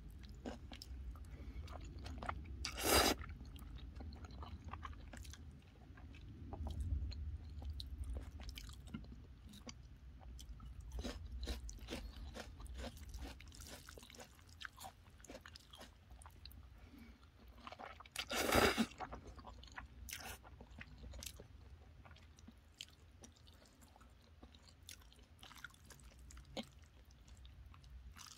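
Close-miked chewing of jjajangmyeon noodles in black bean sauce, with many small wet clicks and smacks. Two louder noisy bursts stand out, about three seconds in and about eighteen seconds in.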